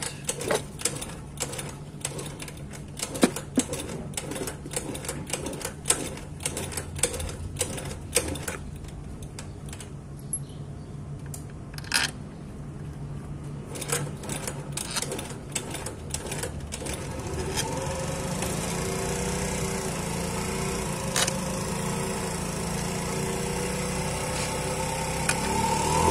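Scattered clicks and knocks as the scooter's plastic-and-metal belt-drive cover is handled and fitted. About two-thirds of the way through, a steady mechanical hum comes in and grows slightly louder.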